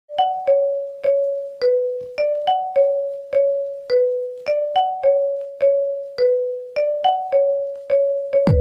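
A mobile phone ringtone melody in a piano-like keyboard sound: single struck notes, about two to three a second, each ringing and fading, looping a short phrase. Near the end a different tune cuts in with deep falling bass notes.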